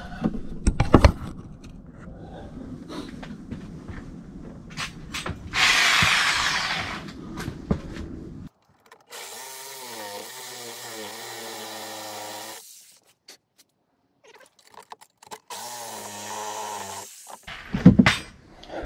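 Knocks and handling noise at a car's headlight pod, with a short loud hiss about six seconds in. A handheld power tool's motor then runs steadily for about three and a half seconds, and runs again briefly near the end.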